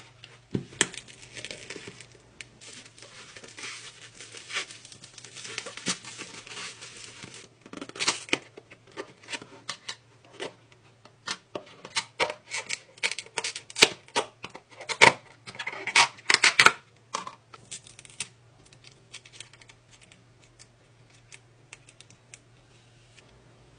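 Plastic packaging being opened by hand: bubble wrap and a plastic courier mailer crinkling and crackling, then sharp clicks and rustles of a clear plastic container and lid, then softer rustling of a plastic photocard sleeve near the end. A faint steady low hum runs underneath.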